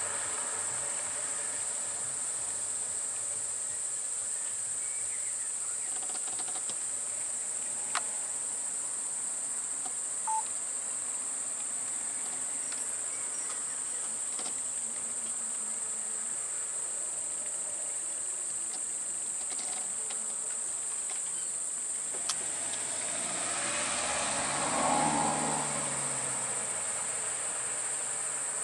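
Steady high-pitched drone of an insect chorus, with a few faint clicks and a louder swell of lower-pitched noise near the end.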